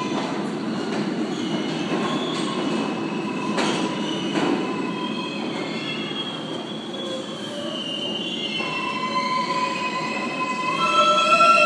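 R188 subway train pulling into a station platform. Its wheels rumble steadily over the rails with clicks over the rail joints in the first few seconds. Then high squealing tones from the wheels and brakes build up and are loudest near the end as it slows.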